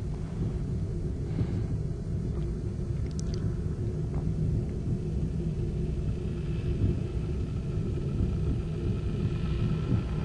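Steady low rumbling noise, with a few faint clicks near the start and faint high tones fading in about six seconds in.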